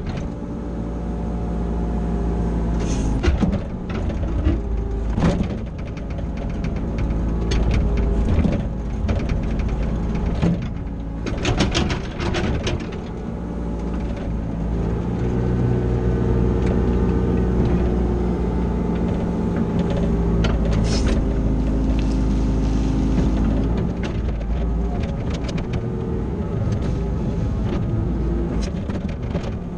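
CAT 304 CR mini excavator working dirt: its diesel engine and hydraulics run steadily, with a pitch that shifts as the load changes. Frequent knocks and clanks from the bucket and tracks come through.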